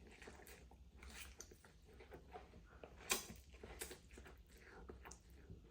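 A person chewing a mouthful of stir-fried instant noodles, faint wet mouth clicks and smacks at an uneven pace, with one louder smack about three seconds in.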